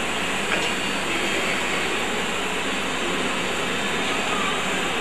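Steady rushing background noise of a large hall, without speech.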